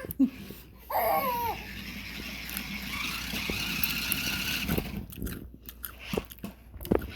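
A baby's short, gliding squeal about a second in. Then a toy remote control car's small electric motor whines steadily for a few seconds, followed by a few light knocks of the plastic toy.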